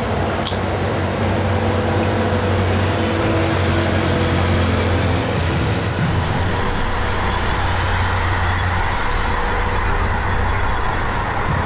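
Steady motor-vehicle noise: a low engine drone with road and traffic noise, easing a little near the end.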